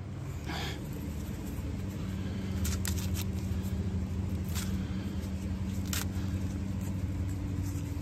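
Corn husks crackling and tearing in brief bursts, about five times, as an ear of sweet corn is shucked by hand, over a steady low mechanical hum.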